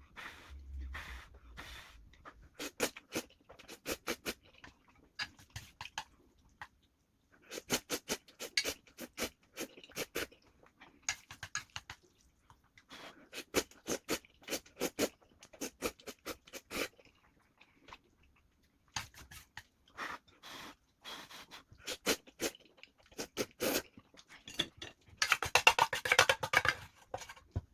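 Close-miked eating sounds of a person chewing Shin Ramyun Toomba noodles: clusters of quick wet clicks and smacks with short pauses between mouthfuls, and a longer, denser stretch near the end.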